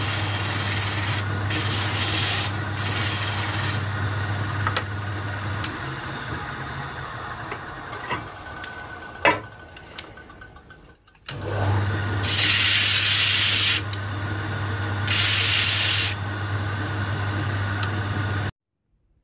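Motor-driven foam sanding disc running with a steady low hum, with hissing stretches of wood being sanded against it. About halfway through the sound fades almost away, then the disc runs and sands again before stopping abruptly near the end.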